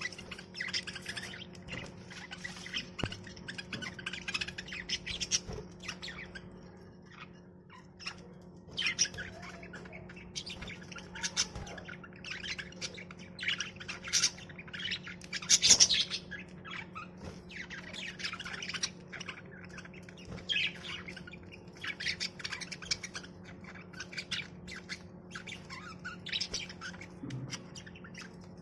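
Budgerigars chattering and chirping, a flock of many short calls coming thick and fast, with one loud squawk about sixteen seconds in. A steady low hum runs underneath.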